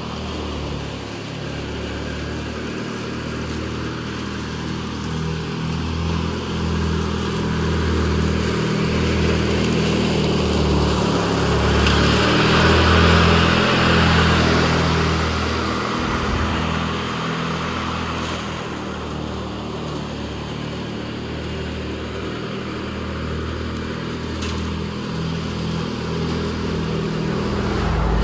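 Riding lawn mower engine running steadily under load while mowing, with a broader rushing noise swelling up near the middle.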